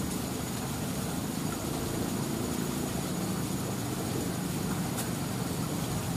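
Steady low rumbling background noise that holds the same level throughout, with a faint click about five seconds in.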